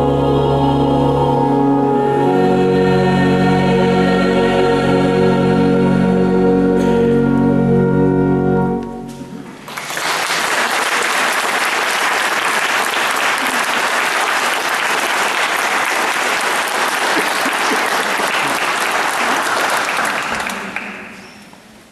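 Mixed choir singing sustained closing chords that end about nine seconds in. Audience applause follows for about ten seconds and fades out near the end.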